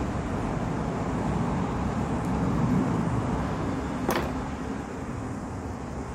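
Steady low background rumble, with one short click about four seconds in as small metal engine parts are handled on the bench.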